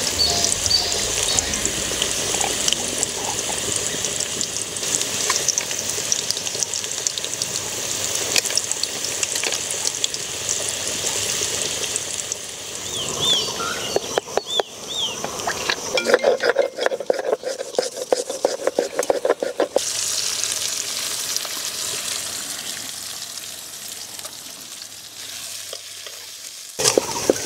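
Food sizzling in hot oil with a steady hiss. About 14 s in, this gives way to several seconds of rhythmic grinding strokes as dried red chillies are crushed with a hand-held stone on a flat stone slab (sil-nora), followed by quieter hand-mixing sounds.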